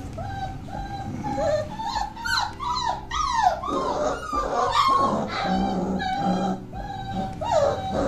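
Month-old Doberman puppies whining and yelping in a string of short, high cries, several at once in the middle stretch: a litter crying to be let out of their pen.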